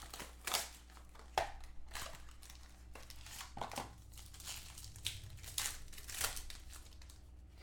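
Trading cards and their plastic packaging being handled: a run of short, irregular crinkles and scrapes.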